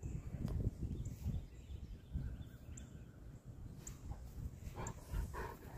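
Outdoor ambience: uneven low rumbling like wind on the microphone, with a few faint, very short high chirps now and then.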